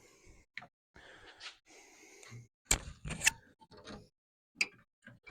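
Small clicks and taps of a soldering iron and tools handled against a stereo receiver's circuit board while its capacitors are desoldered, with stretches of soft hiss in the first half.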